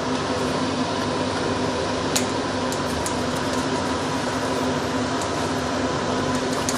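Steady whirring hum of a kitchen fan, with a faint steady tone in it and a few light clicks.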